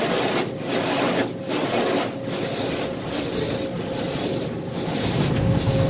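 Automatic car wash spraying water and scrubbing over the car, heard from inside the cabin as a dense wash with a steady hum underneath. It dips briefly several times, and a low rumble builds near the end.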